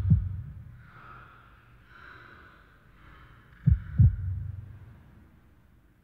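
A slow heartbeat of deep paired lub-dub thumps: one pair right at the start and another about three and a half seconds later. A faint airy hiss fills the gaps between beats.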